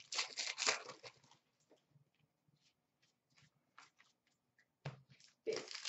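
Trading cards being handled by hand: quick rustling and flicking of card stock as cards are slid off a stack, then a few faint clicks.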